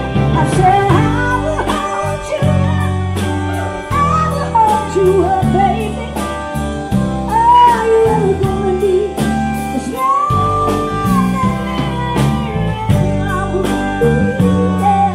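Live band with a female lead vocal over stage keyboard, electric bass, electric guitar and drums, heard loud through the club PA.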